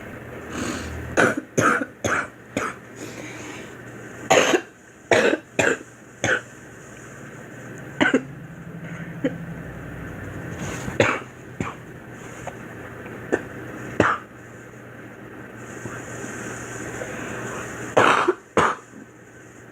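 A girl coughing in bouts: a quick run of four coughs, another run of four a few seconds later, then single coughs several seconds apart, and a final pair near the end.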